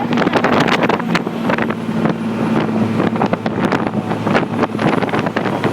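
Motorboat engine running steadily, with wind buffeting the microphone and choppy splashing noise over it.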